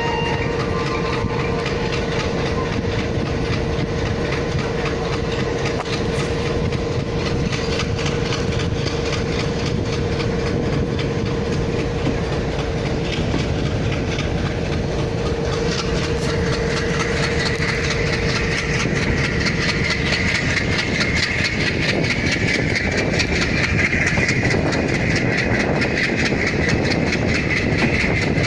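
WDM-3A diesel-electric locomotive's engine running at high revs under acceleration, with a turbocharger whistle and air-compressor noise. A steady tone fades out about twenty seconds in, while a higher whistle rises in pitch and grows louder from about sixteen seconds in, over a run of regular clicks.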